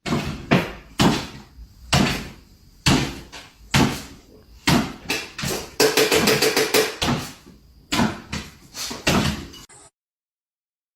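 Irregular series of sharp knocks and bangs, with a quick rattling run about six seconds in; the sound cuts off abruptly about a second before the end.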